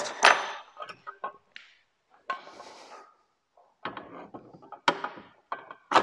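Metal knocks and clacks as a camper jack leg is handled and its hook plate is offered up to the quick-release bracket on the camper wall, with a short rustle about two seconds in and a run of knocks near the end.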